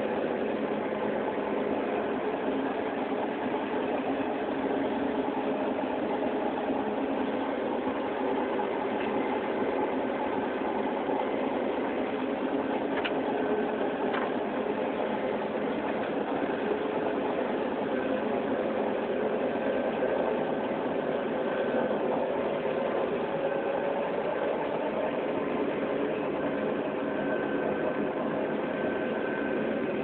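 John Deere 9500 combine running while harvesting corn: a steady, even drone of engine and threshing machinery, heard from inside the cab.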